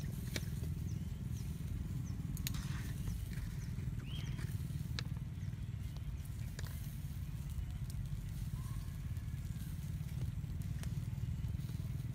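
Steady low outdoor rumble, like wind on the microphone, with a few faint sharp clicks scattered through it and a brief chirp about four seconds in.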